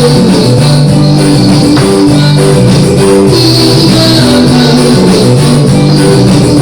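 Loud background music: an upbeat dance track with plucked guitar notes and tambourine.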